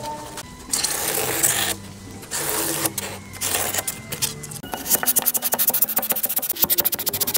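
Background music with rubbing and scraping on a hard surface: two long rasping strokes in the first few seconds, then from about five seconds in a fast run of short, quick scraping strokes.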